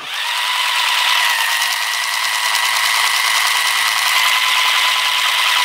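Battery-powered toy AK47 firing its sound effect: a steady electronic buzz with a high held tone over a fast mechanical rattle, swelling in over the first second and going on without a break.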